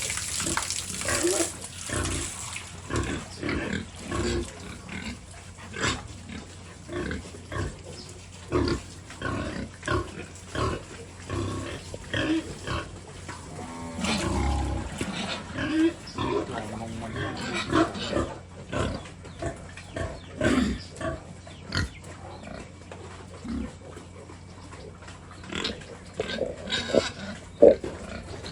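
Big pigs grunting over and over in short, irregular grunts. A hiss of spraying water fades out in the first second or two.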